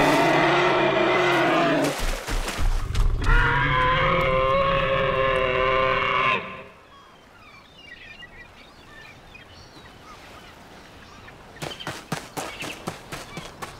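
Cartoon dinosaur roaring twice: a long bellow of about two seconds, then after a brief pause a longer one of about three seconds that stops suddenly. Afterwards faint bird chirps, and a run of short thuds near the end.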